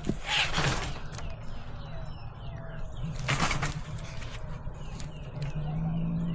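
A cat caught in a live cage trap growls low and steadily, unhappy at being trapped. It hisses in two short bursts, about half a second in and about three and a half seconds in. Small birds chirp in the background.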